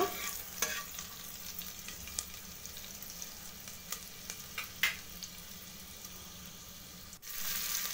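Green chillies, dry red chillies and panch phoron frying in hot oil in an aluminium pressure cooker: a steady sizzle with a few sharp clicks of a metal spoon against the pot. Near the end the sizzle breaks off for an instant and comes back louder.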